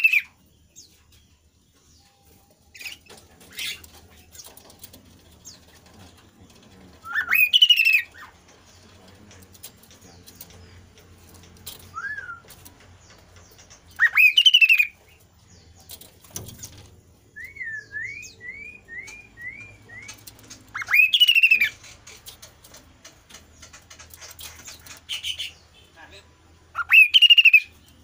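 Chestnut-capped babbler (kasu-kasu) singing: a loud phrase about a second long that sweeps sharply upward and then wavers high, repeated four times about seven seconds apart. Between them comes a quieter run of five short rising notes, with faint ticks and rustles from the bird moving on its perch.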